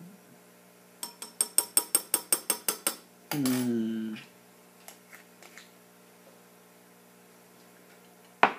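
A glass stirring rod clinks rapidly against the inside of a glass beaker, about six ringing taps a second for two seconds. A short voice sound falling in pitch follows, and a single sharp knock comes near the end.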